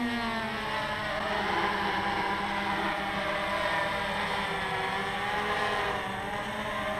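Hexacopter's six NTM 2826 1000kv brushless motors and 9x4.7 propellers whining in a low hover. The pitch climbs at the very start, then holds steady with slight wavers.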